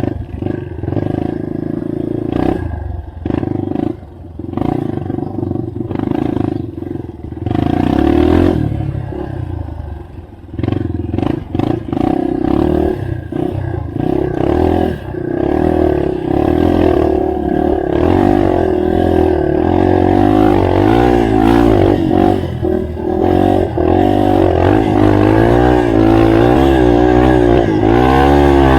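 Yamaha TT-R230 trail motorcycle's single-cylinder four-stroke engine running under load off-road, the revs rising and falling constantly with the throttle. The first ten seconds or so are choppy, with the engine cutting in and out among knocks and rattles; after that it runs more steadily with the pitch wobbling quickly up and down.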